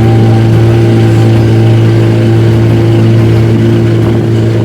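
Tourist boat's engine running steadily at an even speed, a loud low hum that does not change.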